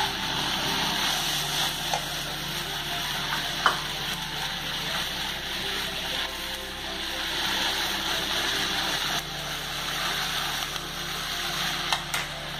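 Chicken mince and chopped vegetables sizzling steadily in a hot frying pan, with a few sharp clicks along the way.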